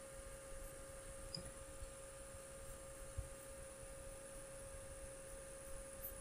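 Faint, steady electrical hum with one constant pitch, and a few soft, low bumps.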